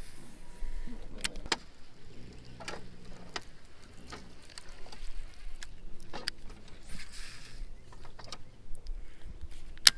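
Baitcasting rod and reel being handled on a small boat: scattered light clicks and knocks, with a short hiss about seven seconds in as a cast goes out, and a sharp click just before the end.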